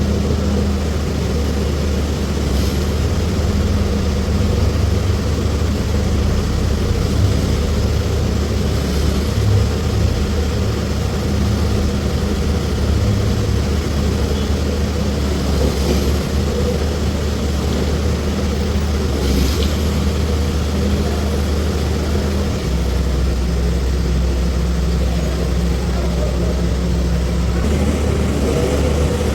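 A vehicle's engine running steadily with a low drone, with a few brief knocks or rattles. The engine note shifts a little about 23 seconds in.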